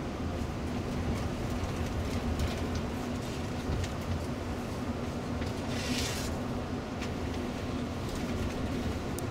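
Interior of a Setra coach driving at highway speed: steady low engine and road rumble with a constant hum, and a short hiss about six seconds in.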